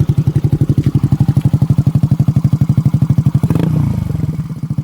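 Yamaha Mio Soul i 125 scooter's single-cylinder engine, built with a high-lift racing cam, idling through an SC Project aftermarket exhaust just after starting, with fast, even exhaust pulses. About three and a half seconds in it takes a short throttle blip and settles back.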